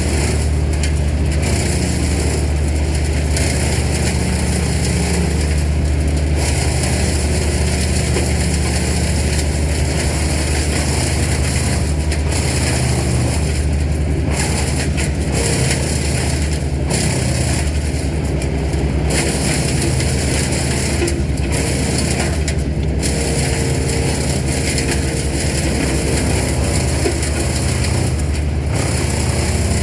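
Large engine running steadily with a deep, constant low rumble.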